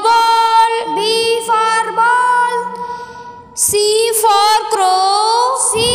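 A voice singing a children's alphabet rhyme ("B for ball") over melodic backing music, with a short break in the singing a little past halfway.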